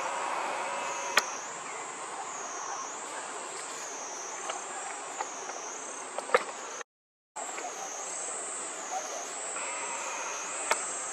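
Insect chorus: a steady high-pitched drone that dips and rises about once a second, with a few sharp clicks over it. The sound cuts out for about half a second midway.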